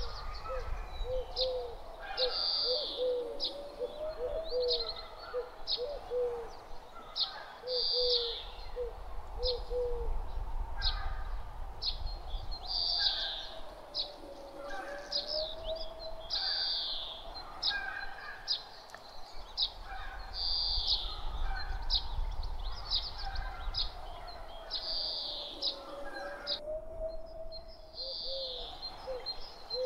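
Woodland birdsong: high chirps repeat every couple of seconds over a low steady rumble of breeze. A run of short, lower repeated notes sounds in the first ten seconds and again at the very end, and a slow wavering tone rises and falls underneath.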